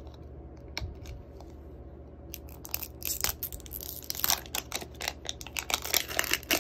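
Plastic wrapper on a Mini Brands capsule ball crinkling and tearing as it is peeled off by hand. A few light clicks at first, then steady crackling from about two seconds in, louder near the end.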